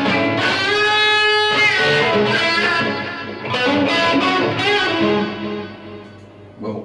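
Electric guitar played through a Boss ME-25 multi-effects unit set to its SmoothLead lead patch: a long sustained note about a second in, then a run of lead notes that dies away toward the end.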